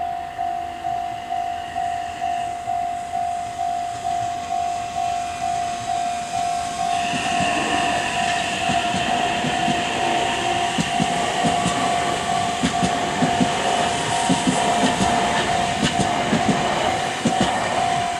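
Japanese level-crossing warning bell ringing about twice a second. From about seven seconds in, a train runs over the crossing with a loud rush and the clacking of its wheels, dying away near the end while the bell keeps ringing.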